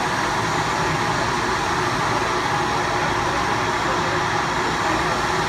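Helicopter's turbine engines running steadily while parked on the ground, a constant, unchanging rush of engine noise.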